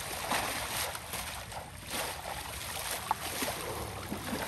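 Water sloshing and splashing in irregular bursts, with a sharp click about three seconds in.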